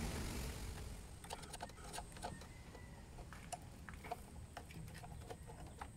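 Faint handling noise as a linear amplifier's power cord is connected to a power supply: a brief rustle in the first second, then scattered small clicks and taps.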